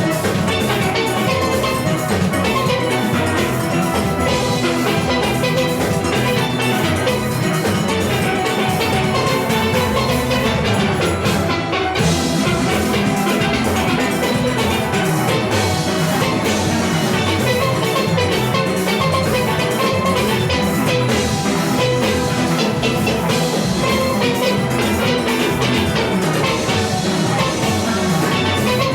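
Steel orchestra playing: a full ensemble of steel pans with an engine-room drum and percussion section keeping a steady beat.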